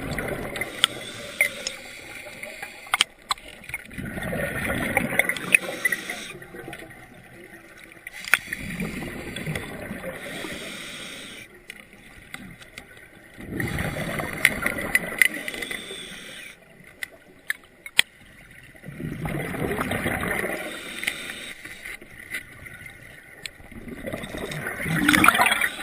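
Scuba diver's regulator breathing underwater: exhaled bubbles gurgle out in a burst about every five seconds, with quieter stretches between and a few sharp clicks or knocks.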